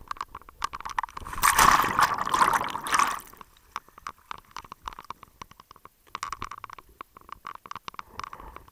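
A scuba diver's exhaled breath bubbling out of the regulator underwater: one loud rush of bubbles starting about a second and a half in and lasting almost two seconds, with scattered clicks and crackles before and after it.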